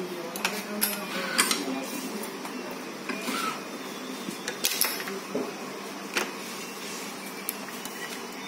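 Irregular sharp clicks and clacks from a badminton racket stringing machine as the string is threaded, pulled through the frame and clamped.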